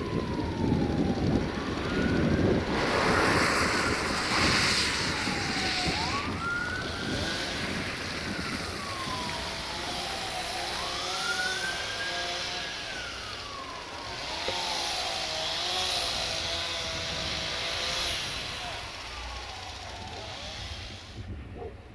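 Emergency vehicle siren wailing, its pitch rising and falling in slow sweeps about every four to five seconds, fading out near the end, over a steady rumble of traffic noise.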